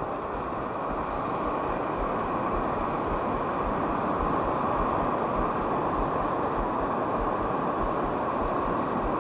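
Steady rush of surf and shallow sea water, with wind buffeting the microphone in low irregular gusts.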